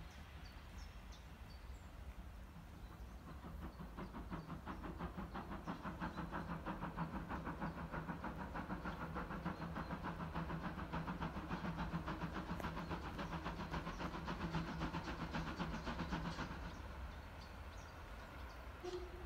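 Distant steam locomotive working, its exhaust beats a steady rhythmic chuffing of about five beats a second that swells gradually and then fades away about three-quarters of the way in.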